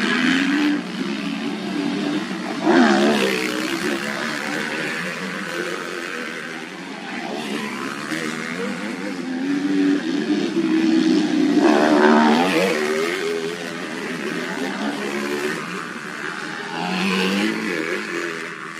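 Motocross dirt bike engines revving on a race track, the pitch rising and falling as the throttle is opened and shut, loudest as bikes pass about three seconds in and again about twelve seconds in.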